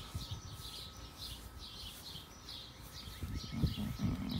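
Small birds chirping repeatedly in the background while a grooming brush is stroked through a wolfdog's thick double coat, the rustling growing louder and choppier near the end.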